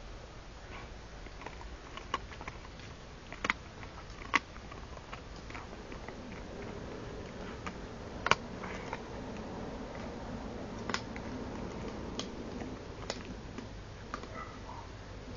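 Borzoi gnawing a bone: irregular sharp cracks and clicks of teeth on bone, a handful of strong ones among fainter crunches.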